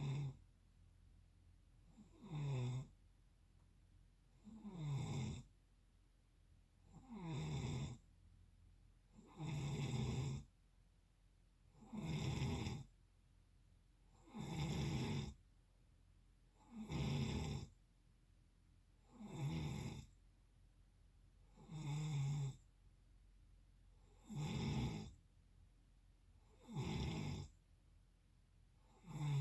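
Regular snoring, about one snore every two and a half seconds, each lasting about a second, with a pitch that slides downward as each snore begins.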